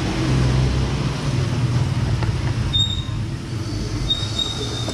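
Steady low mechanical rumble, like engines or traffic running in the background, with a thin high whine that sounds briefly about three seconds in and again near the end.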